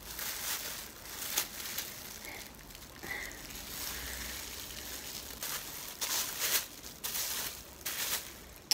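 Plastic freezer bag worn as a glove crinkling in irregular bursts of rustling as a plastic comb is worked through a dye-covered strand of hair.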